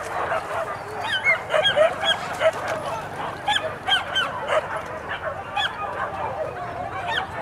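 A pack of boar-hunting dogs yelping and baying on a chase: many short, high yelps overlapping, busiest in the first half.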